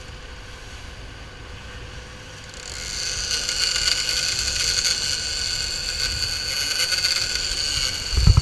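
Boat's Volvo D4-225 diesel running at speed under the wash of the wake and wind, with a steady high whine. It gets louder about three seconds in.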